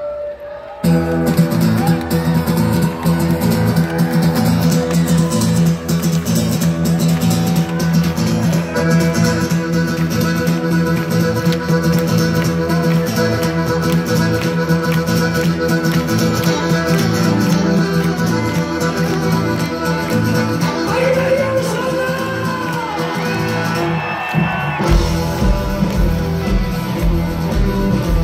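A Celtic punk band playing live, heard from the crowd, in a passage with no words: accordion, fiddle, electric guitars, bass and drums. It starts after a brief drop at the very beginning, and about 25 seconds in the drums and bass hit harder.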